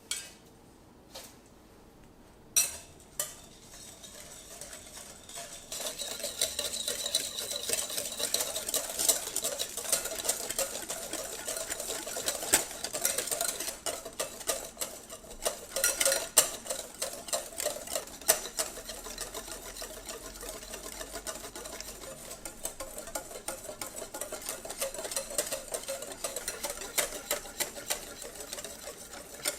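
Instant coffee, sugar and hot water being beaten by hand in a bowl for dalgona coffee: a few separate clinks, then a fast, continuous clinking and scraping of the utensil against the bowl that gets busier about six seconds in.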